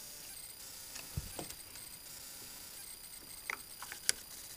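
A few scattered small metallic clicks and ticks of a screwdriver working the points adjustment screw on a Model A Ford distributor's upper plate, loosening it to set the points gap. A soft low thump comes about a second in, and the sharpest tick comes near the end.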